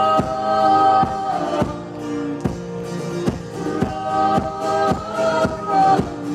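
Live pop band music: voices holding long sung notes in harmony over instrumental backing, with a steady beat of about two and a half strikes a second.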